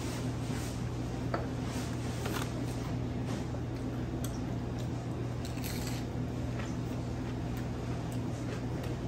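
Someone eating battered fried fish up close: scattered faint crunches, chews and small clicks of handling food, over a steady low mechanical hum.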